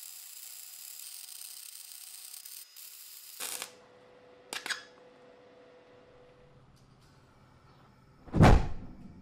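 Steady high hiss and crackle of welding that cuts off about a third of the way in, followed by a couple of sharp clicks. Near the end comes a loud deep whump as the gas forge lights, and then the low rumble of its burner.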